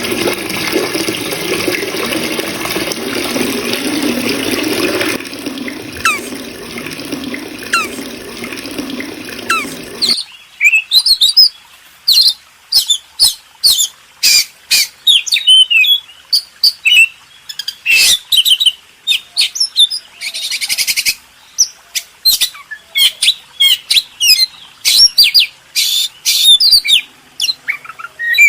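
A steady rushing noise with a few faint chirps over it. About ten seconds in it cuts abruptly to a small bird chirping rapidly: sharp, high chirps several a second, with short gaps of quiet between them.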